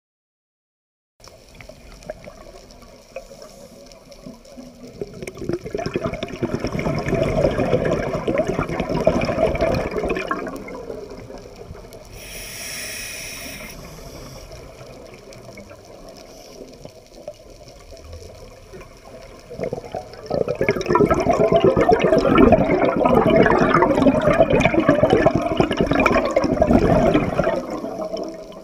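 A scuba diver breathing through a regulator underwater: two long, loud bursts of exhaled bubbles, with a short hiss of inhaled air between them.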